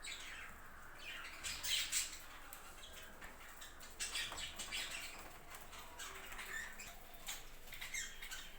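Budgerigars chirping and chattering in many short, high, sweeping calls, loudest about two seconds in and again around four seconds in.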